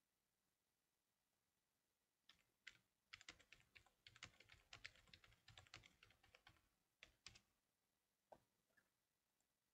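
Typing on a computer keyboard: a quick run of keystrokes starting about two seconds in and lasting about five seconds, then a few single key clicks near the end.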